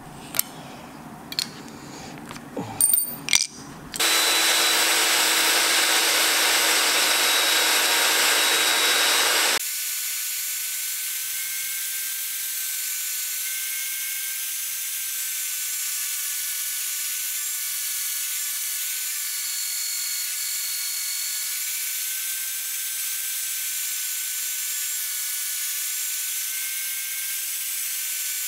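A few sharp taps and clicks of hand tools working a pin punch on a wooden knife handle, then a small band saw runs from about four seconds in, loud at first, then quieter with a steady, slightly wavering whine as it cuts a block of wood.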